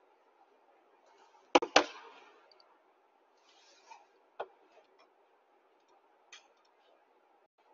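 Two loud, sharp knocks in quick succession about one and a half seconds in, then a few scattered fainter clicks, over a faint steady hum.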